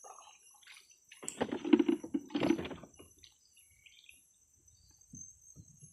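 Insects droning steadily at a high pitch in riverside forest. About a second in, a louder rough, noisy sound lasts for about two seconds, and a few faint chirps follow.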